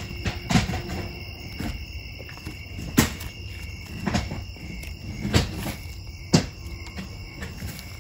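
Sheet-metal skirting around the base of a building banging sharply about five times at irregular intervals, as a trapped animal underneath pushes against it. Crickets chirp steadily throughout.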